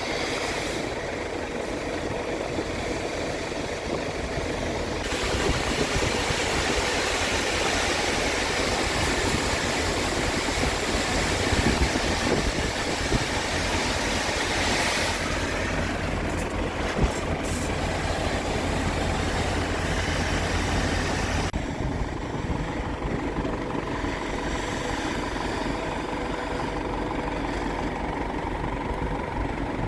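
Farm vehicle engine running steadily, louder and brighter for a long stretch in the middle before easing back.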